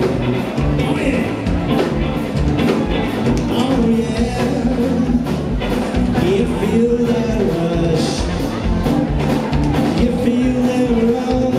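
A live rock band playing loudly: drum kit, electric guitars and bass, with a lead melody line that slides up and down over the beat.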